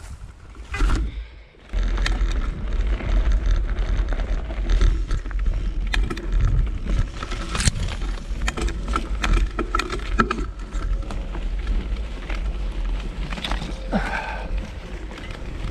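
Mountain bike being ridden over a rough trail, starting about two seconds in: a steady low rumble with many quick rattles and clicks from the bike over the bumps.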